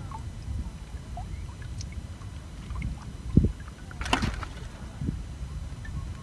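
Wind rumbling on the microphone, with a low thump about three and a half seconds in and a brief rustle just after it.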